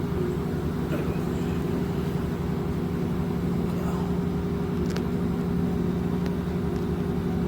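A commercial laundry machine running with a steady low mechanical hum, with a faint click or two near the middle.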